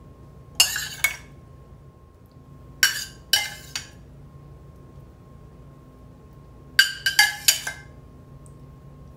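A metal spoon clinking against a stainless steel saucepan and a ceramic baking dish while cooked diced pineapple is spooned out, in three short bursts of sharp clinks.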